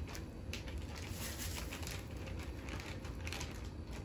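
Faint crinkling and rustling of a plastic zip-top bag of flour and a plastic food-prep glove being handled, with a few soft clicks, over a steady low hum.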